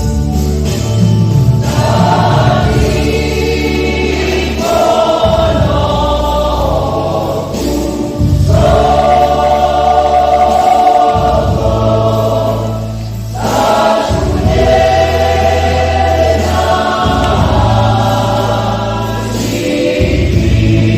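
Church choir singing a Batak Toba hymn in parts, phrase by phrase with brief breaks between phrases, over long held low bass notes.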